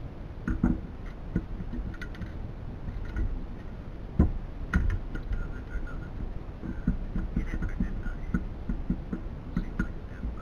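Irregular clicks and knocks of tools and parts being handled, with louder knocks about half a second in and just after four seconds.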